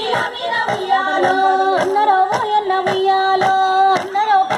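Women singing a Bathukamma folk song together, with hand claps keeping a steady beat of about two a second.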